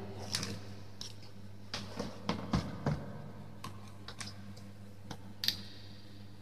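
Scattered sharp plastic clicks and knocks as a plug-in test lamp is handled and its plug pushed into a wall socket, the loudest click about five and a half seconds in, over a steady low hum.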